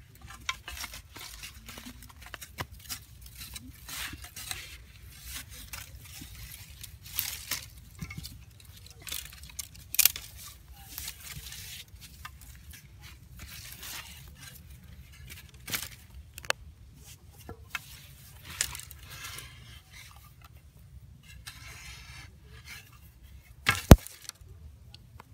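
Digging into dry, hard soil with a hand tool: scattered scrapes, knocks and crumbling earth around a burrow, with one sharp knock near the end.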